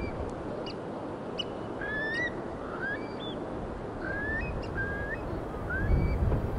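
Wild birds calling: a dozen or so short, rising whistled calls from several birds, over a steady background rush.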